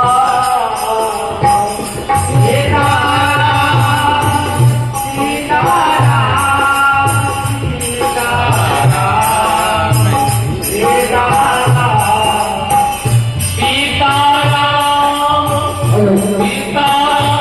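Devotional kirtan music: a harmonium melody over a steady drum beat with jingling hand cymbals or bells.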